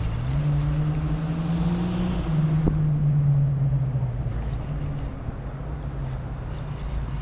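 A motor's low, steady hum that steps up in pitch just after the start and drops back a little after two seconds, with a single faint click partway through.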